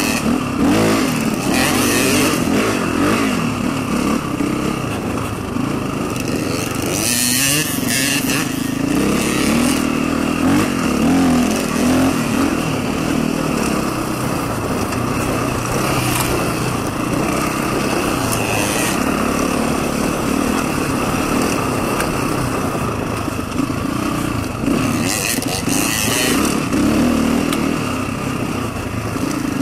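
Dirt bike engine running under load on a rough trail, its pitch rising and falling as the throttle opens and closes, with wind noise on the microphone and two short louder bursts of hiss, about seven seconds in and near the end.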